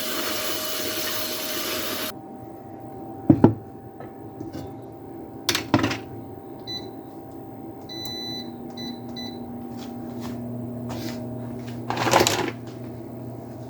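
Running water stops about two seconds in, and two knocks follow. A kitchen appliance then gives a string of short electronic beeps as its buttons are pressed and starts a steady low hum. A brief louder clatter comes near the end.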